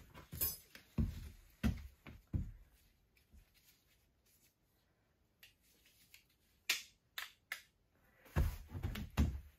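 Scattered handling sounds of someone moving about and picking up hand tools: a run of dull knocks, a quiet pause, then a few sharp clicks and more knocks near the end.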